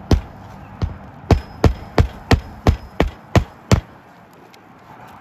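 Hammer blows: about ten sharp strikes, most of them in a quick, even run of about three a second, then they stop.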